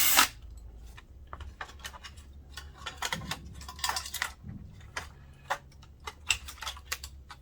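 Scattered clicks, taps and clatter of small plastic and metal parts being handled while a projector is taken apart, with a louder short clatter right at the start.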